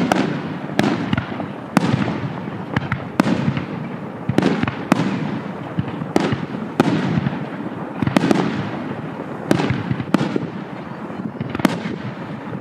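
Fireworks display: aerial shells bursting in quick succession, more than one bang a second. Each bang trails off in a rolling echo, with crackling in between.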